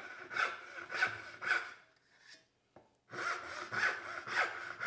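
Freshly sharpened rip-tooth dovetail saw cutting wood by hand in quick strokes, about two a second. The strokes stop for about a second midway, then start again.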